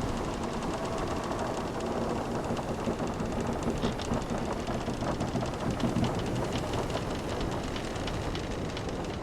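Wooden ship timbers creaking and ticking, with short low groans, over a steady wash of ocean waves.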